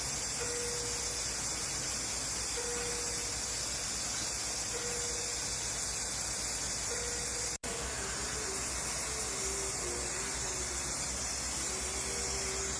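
Steady hiss with a short beep of one pitch repeating about every two seconds, which stops at a cut about seven and a half seconds in; after that a faint wavering tone runs under the hiss.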